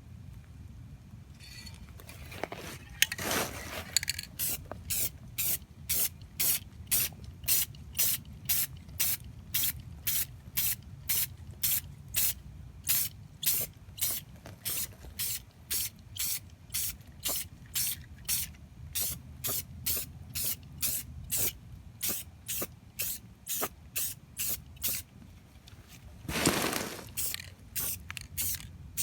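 Aerosol spray-paint can hissing in short, even bursts about twice a second, with a longer, louder burst near the end.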